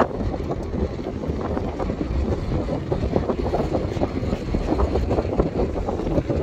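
Wind buffeting the microphone on the open deck of a moving car ferry, with a low rumble from the ferry underneath.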